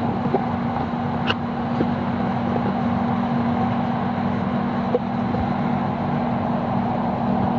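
Doha Metro train running underground, heard from inside the passenger cabin: a steady rumble of wheels and motors with a constant low hum.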